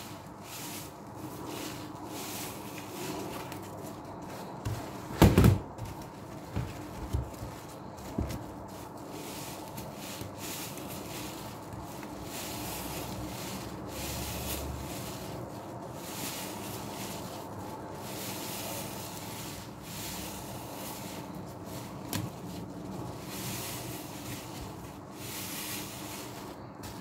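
Large foam-filled Muc-Off sponges being squeezed and kneaded by hand in laundry-liquid suds: continuous wet squelching and crackling foam. There are a few dull knocks about five to eight seconds in, the first and loudest about five seconds in.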